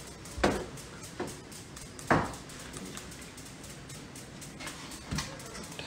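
A few scattered knocks and taps on a kitchen countertop as paratha dough and filling are handled, four in all, the loudest about two seconds in.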